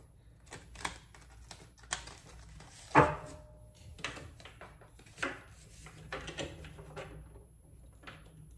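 Tarot cards being shuffled and handled: a run of short rustles and clicks with scattered sharper taps, the loudest about three seconds in.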